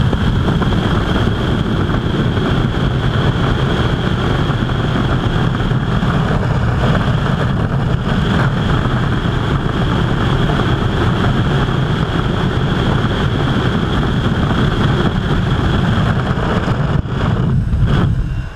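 Freefall airflow buffeting a skydiver's helmet-mounted camera microphone: a loud, steady rush of wind with a thin high whistle held over it. It dips briefly near the end.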